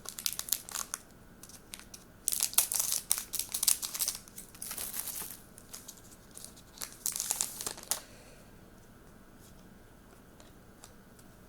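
Plastic trading-card pack wrapper crinkling and tearing open in several bursts, stopping about eight seconds in.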